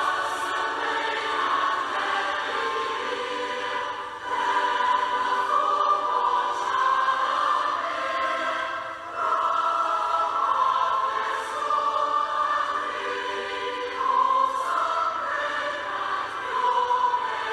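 Choir singing a hymn in long sustained phrases, with short breaks between them.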